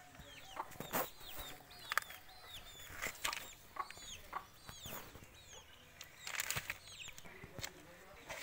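Chickens calling in many short, falling chirps and clucks, with several sharp clicks and knocks from the metal starter motor being handled.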